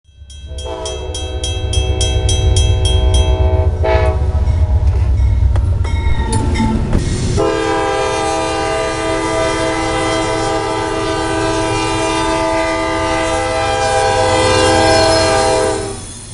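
Diesel freight locomotive's air horn blowing over the low rumble of the train. In the first few seconds a bell rings about four times a second beside the horn; from about seven seconds on the horn sounds one long, steady blast, which cuts off sharply near the end.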